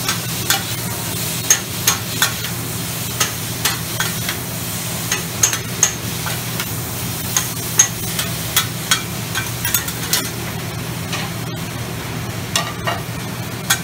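Food sizzling on a steel flat-top griddle while two metal spatulas scrape and clack against it in irregular strokes, stir-frying it. A steady low hum runs underneath.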